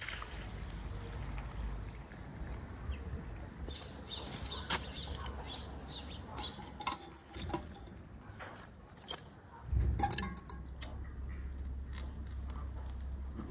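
Thin wooden kindling chips knocking and clattering as they are dropped into the chimney of a metal samovar, with a string of light clicks and knocks. A louder low thump comes about ten seconds in.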